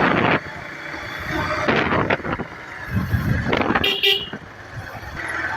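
Road traffic heard from a moving motorcycle, with a vehicle horn honking briefly about four seconds in.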